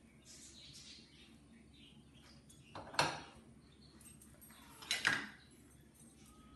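A black frying pan being handled while cooked food is emptied from it onto a plate. There is light scraping at first, then two sharp knocks of the pan about two seconds apart.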